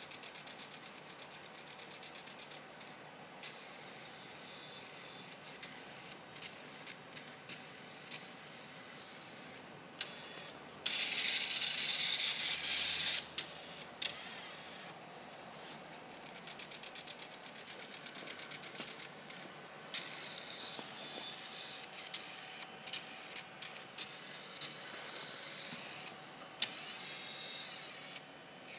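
HP StorageWorks 1/8 tape autoloader's robotic tape-picker carriage motors running as the shuttle moves along its track and turns between the tape magazines. There are runs of rapid, even ticking, scattered clicks, and a louder whirring stretch of about two seconds starting about eleven seconds in.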